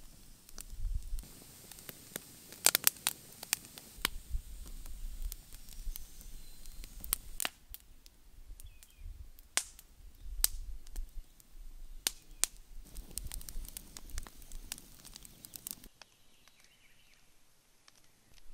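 Split-log wood fire crackling, with sharp pops and snaps at irregular intervals over a faint low rumble. The crackling drops away about sixteen seconds in.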